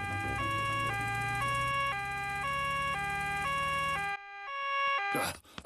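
Cartoon two-tone siren of a doctor's car arriving, switching between a high and a low note about every half second, over a low engine hum that stops about four seconds in. A short burst of noise follows near the end.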